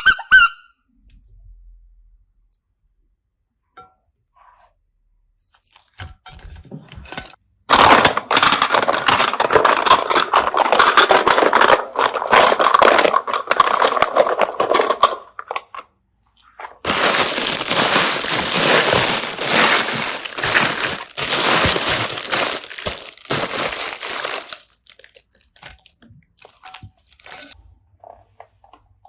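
Slime being squeezed and worked by hand: dense, sticky crackling and popping in two long stretches of about eight seconds each, with a short pause between them.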